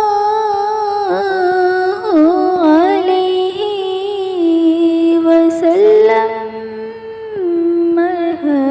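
Wordless devotional humming from a naat, a solo voice holding long notes with wavering ornamental turns. The slow melody steps down in pitch near the end.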